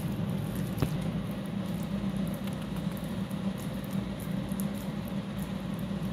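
Wet crushed slate pencil paste squished and kneaded by hand in a glass bowl: a steady soft crackle with scattered small clicks, one sharper click about a second in.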